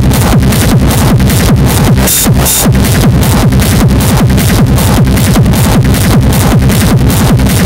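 Electronic dance music track: a fast, steady four-on-the-floor kick with a rolling bass line. About two seconds in the low end drops out briefly under a short burst of bright hiss, then the beat carries on.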